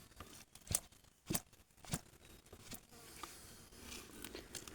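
A few faint, sharp clicks of gravel and stones knocking in a gold pan as it is worked in thick, muddy water.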